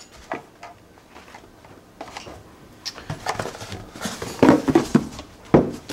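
Handling noise from a cardboard box and its foam insert tray: the tray is lifted out and set down and the empty box lifted away, with rubbing and scraping that grows louder in the second half and several knocks, the sharpest just before the end.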